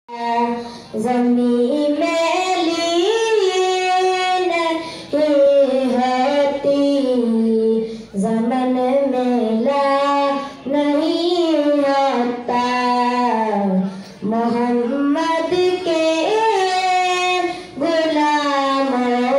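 A boy singing a naat solo into a handheld microphone, with no instruments, in long sliding phrases a few seconds each and brief breaths between them.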